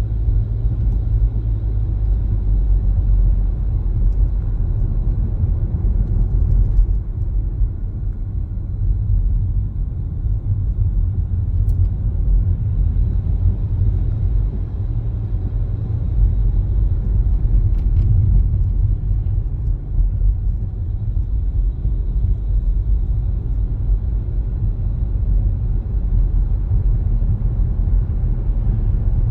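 A car driving at steady speed: a continuous low rumble of road and engine noise, with a couple of faint clicks partway through.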